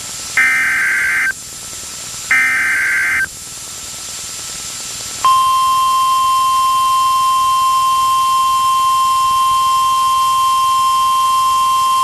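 Two rapid, buzzy bursts of EAS digital header data, each about a second long and about two seconds apart, announcing the next warning. A couple of seconds later the weather-radio warning alarm, a steady single 1050 Hz tone, comes on loud and holds.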